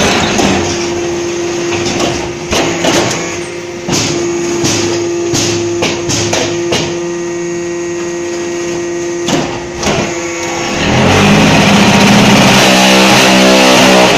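Concrete paver brick machine running: a steady machine hum with irregular metallic knocks and clanks. About eleven seconds in, a much louder, rougher steady noise from the machine takes over.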